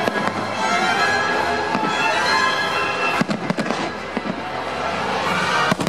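Fireworks display with its show music playing: shells bursting in a cluster of sharp bangs about three seconds in and again near the end.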